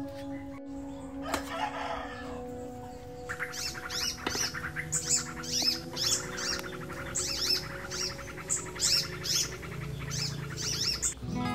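Small birds chirping in quick, repeated calls that sweep down in pitch, starting about three seconds in and stopping near the end.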